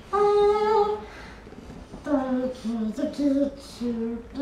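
A girl singing a short wordless tune: one long high note, then after a pause a run of lower held notes stepping up and down in pitch.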